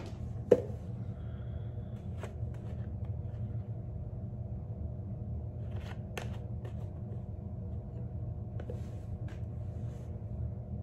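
Steady low electrical hum with a sharp knock about half a second in, followed by scattered light clicks and brief rustles of things being handled.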